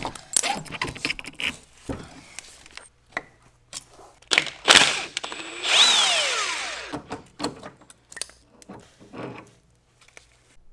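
Cordless impact wrench run in short bursts to take off the forklift wheel's lug nut, the last run ending in a falling whine as the motor winds down. Clanks and knocks from handling the wheel and tools come before and after.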